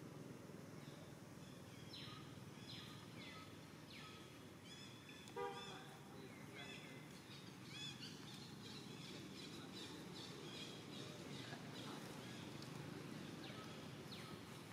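Quiet forest ambience with a low steady background hiss, and small birds chirping through it in short, quick downward-sweeping notes. About five seconds in comes one brief, louder pitched call.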